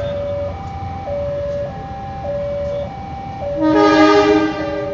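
Level-crossing warning alarm sounding a two-tone signal, switching between a low and a higher tone about every half second, while a diesel locomotive approaches. About three and a half seconds in, the locomotive sounds its horn for about a second; the horn is the loudest sound.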